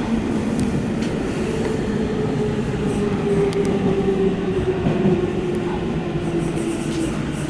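Subway train running through a tunnel, heard from inside its rear cab: rumbling wheel and track noise, with a motor whine whose pitch slowly falls as the train slows toward the station.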